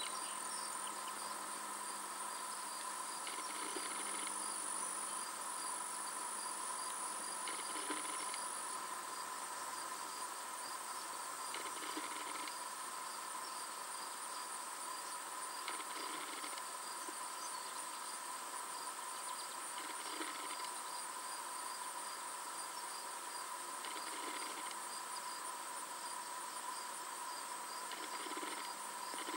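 Steady high-pitched insect chorus, typical of crickets on a summer day, with a short fainter sound repeating about every four seconds.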